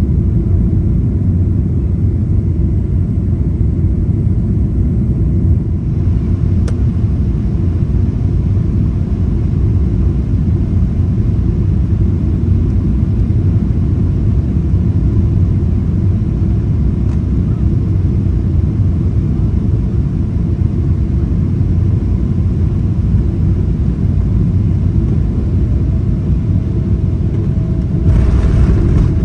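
Steady low rumble of airflow and engine noise inside the economy cabin of a Boeing 777-300ER in flight, with a brief rise in hiss near the end.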